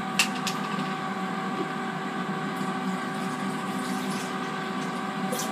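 Steady hum of a running kitchen appliance, with a few light clicks near the start and one near the end.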